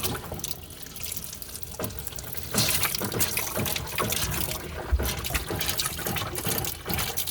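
Water running from an RV bathroom tap set to hot, splashing unevenly into the basin.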